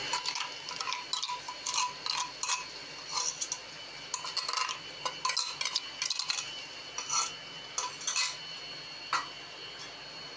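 A metal spoon scraping and clinking against a steel bowl and the rim of an aluminium pressure cooker, a run of short, irregular scrapes and taps as thick ground green chilli and garlic paste is scraped out into the pot.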